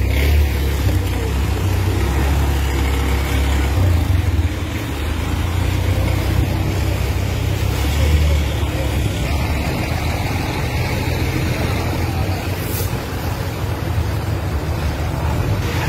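Steady low rumble of a motor vehicle running, with general street noise around it.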